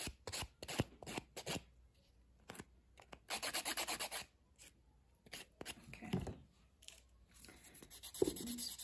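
Nail file rasping over an acrylic nail on a practice finger in quick back-and-forth strokes, coming in short spells with pauses between. The acrylic is still rubbery rather than fully hardened, by the filer's own account.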